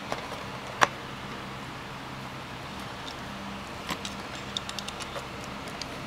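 Clicks and light ticks of multimeter test leads being handled: one sharp click about a second in as the red lead's plug is moved into the meter's current jack, then a few small ticks around four to five seconds as the probe tips touch the charge controller's terminals. A low hum runs underneath.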